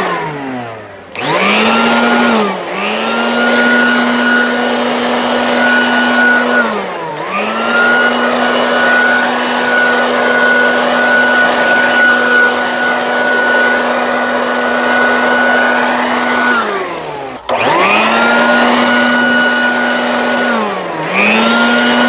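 Branco BSA 800C 2000 W electric leaf blower running in blower mode: a loud, steady motor whine over rushing air. Several times the motor winds down and spins straight back up, most deeply about a second in and again near 17 seconds.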